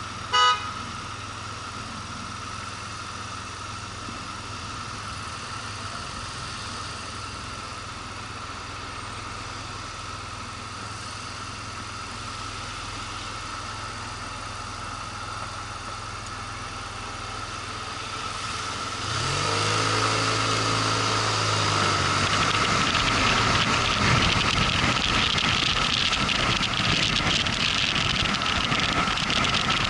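Motorcycle engine idling steadily, then revving and pulling away about two-thirds of the way through, getting louder with rushing wind noise as it speeds up. A short, loud beep sounds about half a second in.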